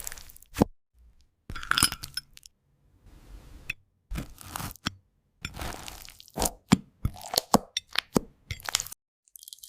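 ASMR crunching and crackling with sharp clinks, as a spoon breaks into crunchy toast and slime. It comes in a string of short bursts, with abrupt silent gaps between them.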